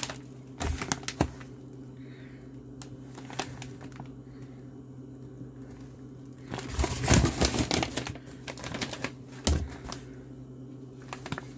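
Plastic MRE meal bags crinkling and rustling as they are lifted and handled in a cardboard box, in short scattered bursts, busiest about seven seconds in, over a steady low background hum.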